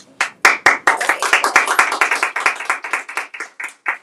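A small group of people applauding, starting a moment in and thinning out toward the end.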